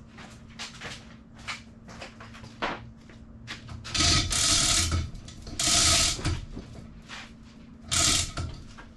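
Manual chain hoist being worked under the load of a roughly 1,600-pound sailboat: a run of light ratchet clicks and chain rattles, then three longer, louder rattling stretches about four, five and a half and eight seconds in. A steady low hum underneath.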